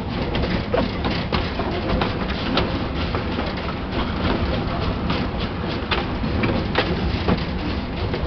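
Steam-hauled mixed goods train running along, heard from one of its wagons: a steady rumble and rattle with irregular clicks and knocks from the wheels and running gear.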